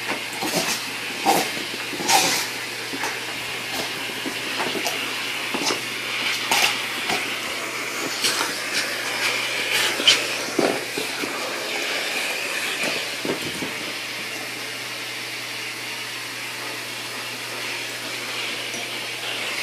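Vacuum cleaner running steadily with a hiss and low hum, while a dog plays with its hose. Scattered knocks and clatters from the hose and nozzle being pounced on and bitten.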